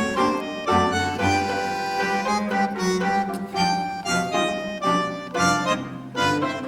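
Background music: a light instrumental tune with an accordion-like melody over a plucked bass line.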